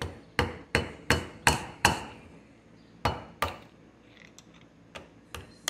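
Hammer blows on a screwdriver set against a split steel retaining clip on the splined shaft of a Toro Groundsmaster 4500-D gearbox, driving the clip out of its shaft groove. There are five quick sharp blows at about three a second, a pause, two more, then two lighter taps near the end.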